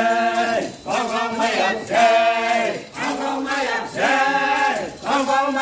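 A group of men and women chanting a traditional song together in short, repeated phrases, about one a second.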